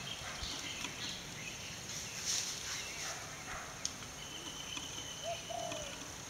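Rural outdoor ambience: a steady high hiss with a few short bird calls, the clearest about two-thirds of the way through, and scattered faint clicks and rustles.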